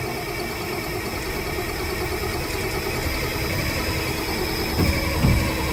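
Starter cranking the cold engine of a log truck, turning it over steadily without it catching yet. Louder, uneven low pulses come in near the end.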